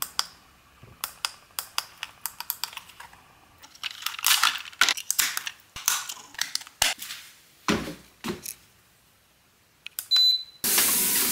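Clicks and rattles of a plastic walking-pad remote being handled: buttons pressed, the battery cover opened and AAA batteries swapped. About ten seconds in comes a short high beep from the walking pad as the remote gets through, then a loud steady hiss starts near the end.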